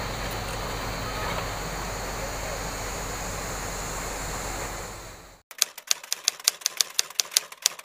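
Steady outdoor background noise fades out about five seconds in. It gives way to a typewriter sound effect: rapid, evenly spaced key clicks, about five a second, as text is typed onto the screen.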